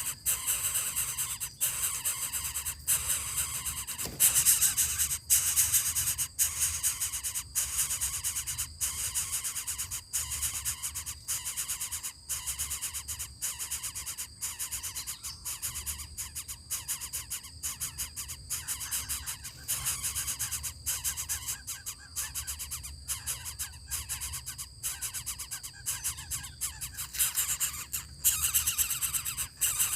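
Coucal (burung bubut) calling in low hoots over a steady high-pitched hiss.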